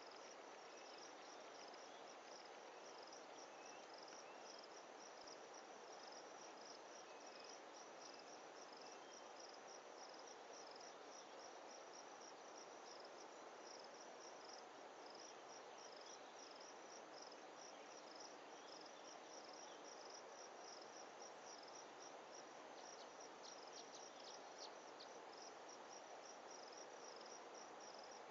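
Faint, steady chirping of insects such as crickets: a regular high-pitched pulse repeating a few times a second over a soft hiss.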